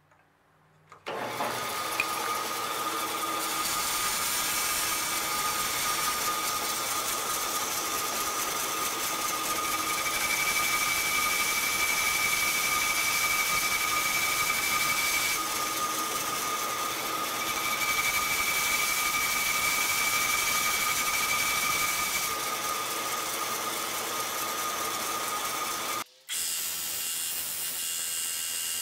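Small metal-cutting bandsaw starting about a second in and running steadily while sawing through the slide-cap castings, with a thin high tone coming in twice for about five seconds each. After a sudden break near the end, a belt sander runs steadily.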